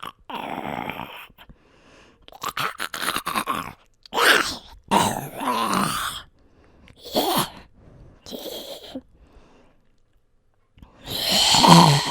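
A man's voice doing zombie growls and grunts: a string of short, guttural, rattling vocal bursts with pauses between, and a longer, louder growl near the end.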